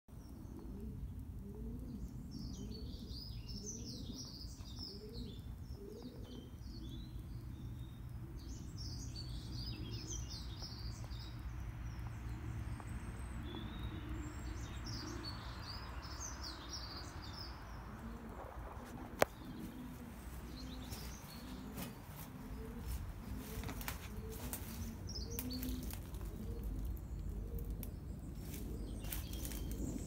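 Small birds chirping and twittering through the first half, with low cooing notes repeating throughout, over a steady low rumble. A single sharp click comes about two-thirds of the way in, and scattered soft knocks and rustles follow near the end.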